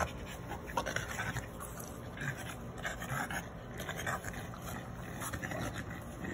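French bulldogs play-fighting: their breathing and scuffling noises come in short, irregular bursts.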